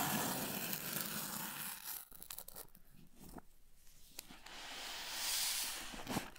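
A cardboard shipping box's tear strip being ripped along its length, a noisy tearing that lasts about two seconds. After that comes quieter handling of the cardboard, then a rising scraping hiss near the end as the box is slid across the surface.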